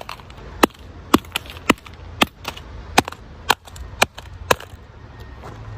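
Hammer striking a smashed iPhone 7's metal body: about ten sharp blows, roughly two a second, stopping about four and a half seconds in.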